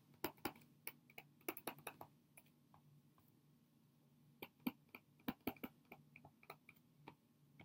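Faint, irregular clicks and taps of a stylus on a tablet as words are handwritten, in two runs with a pause of about a second and a half in the middle.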